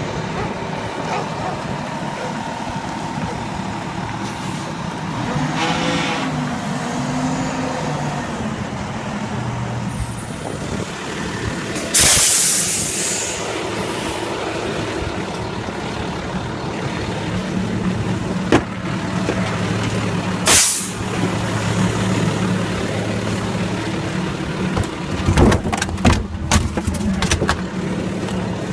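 Garbage truck engine running steadily, with a loud burst of air-brake hiss about twelve seconds in and a shorter hiss near twenty-one seconds. A few sharp knocks come near the end.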